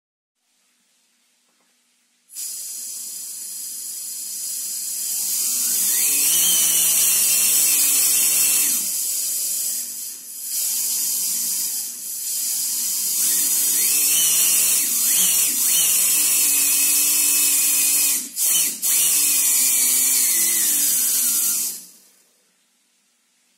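3D-printed compressed-air turbine running on about 5 bar: a loud hiss of escaping air with a whine that rises as the rotor spins up. It starts abruptly about two seconds in, falters a few times as the air flow dips, and cuts off shortly before the end.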